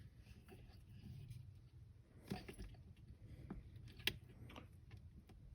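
Hex key tightening a screw into a helmet's HANS anchor post: faint small clicks and scrapes of metal tool and hardware, with two sharper clicks about two and four seconds in.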